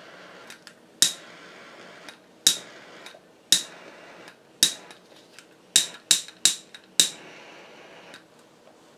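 A series of about eight sharp clicks, each with a brief ring, coming irregularly over a steady hiss; the hiss stops about a second before the end.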